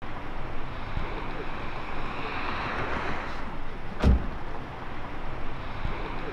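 Outdoor street noise with a car passing, swelling and fading, and a single loud car-door thud about four seconds in.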